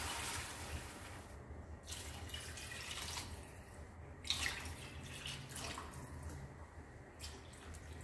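Water being poured into a cooking pot of fried chicken bones and vegetables, splashing unevenly, with a brief louder splash about four seconds in.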